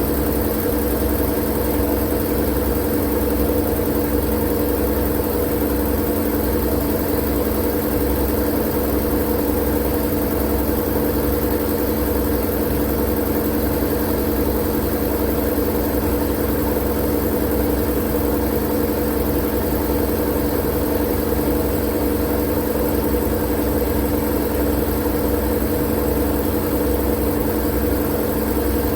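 Steady, unchanging white-noise-style drone: an even hiss over a low rumble and a few steady hum tones, like a running motor, with no breaks or changes.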